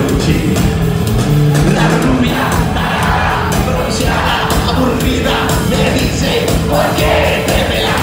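Live rock band playing loudly through a concert hall's PA, recorded from inside the crowd, with sustained low bass notes and steady drum hits. From about two seconds in, voices singing and yelling come and go over the band.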